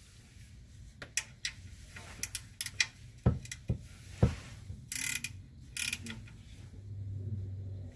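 Socket ratchet wrench with a 13 mm socket clicking in short, irregular runs as the oil drain plug is tightened.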